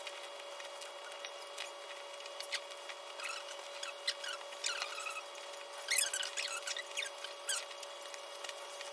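Fabric rustling and squeaky rubbing as a pillow insert is pushed and worked into a tight pillowcase, in many short scratchy strokes that get busier in the second half, over a faint steady hum.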